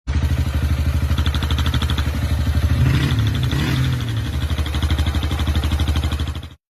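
Honda motorcycle engine running at idle with a steady rhythmic mechanical clatter: timing gear noise. The engine note rises briefly about three seconds in, then settles. The sound cuts off abruptly near the end.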